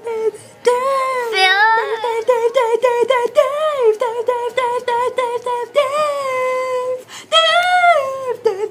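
A young girl singing in a high voice, with held notes that slide up and down and a couple of short breaks.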